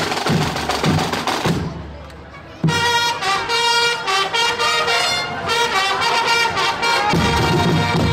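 A fanfare corps playing: marching drums beat at first and break off briefly, then fanfare trumpets come in loud a little under three seconds in, with the drums rejoining near the end.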